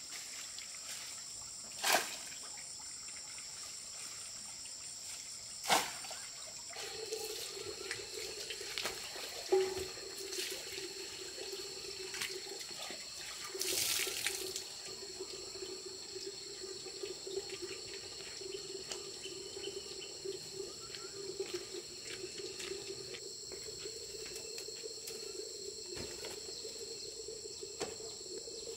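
Water running steadily, starting about seven seconds in, over a constant high insect chirring. A few sharp knocks or clicks fall in the first half, with a louder splashy burst near the middle.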